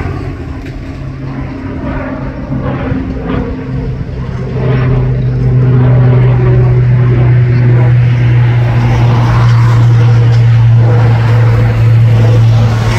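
Twin-turboprop airliner flying overhead: a steady low propeller drone with a humming tone. It grows much louder about five seconds in as the aircraft comes closer.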